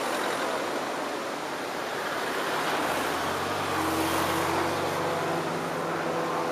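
Aerobatic biplane's piston engine and propeller droning overhead, louder and with a clearer engine note from about halfway through. A steady broad hiss sits underneath.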